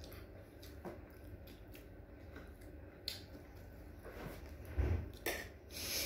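Eating by hand from a rice-and-meat platter: fingers picking through the food and tearing meat off a bone, heard as scattered small clicks and soft squishy handling sounds, with a louder low thump about five seconds in.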